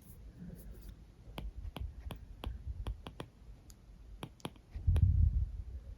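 Apple Pencil tip tapping and clicking against the iPad Pro's glass screen during handwriting: a string of light, irregular clicks, about a dozen in all. A low bump of handling noise comes about five seconds in.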